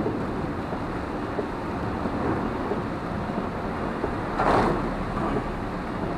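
Heavy rain and wet-road noise heard from inside a moving car: a steady hiss of rain and tyres on the wet road, with a brief louder whoosh a little past the middle as spray from a passing truck hits the car.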